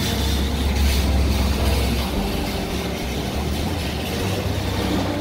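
Steady low rumbling noise with a hiss, under faint background music.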